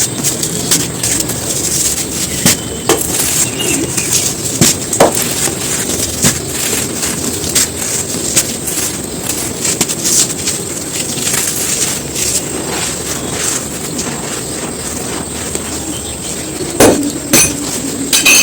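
Dry, crispy sand clumps being crumbled: a dense, steady crackle of small crunches and snaps, with a cluster of louder snaps near the end.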